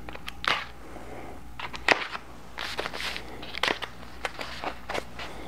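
Long cardboard carton being opened by hand: crackling and rustling of the cardboard, with sharp cracks about half a second and two seconds in.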